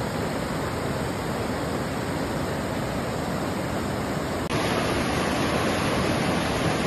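Fast mountain river rushing steadily over rocks in whitewater rapids. About two-thirds of the way through it cuts abruptly to another recording of the rapids, slightly louder.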